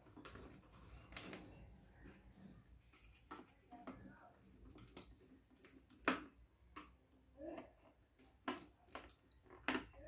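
Irregular light clicks and taps of plastic and wires being handled on an opened kitchen weighing scale, with a sharper click about six seconds in and another near the end.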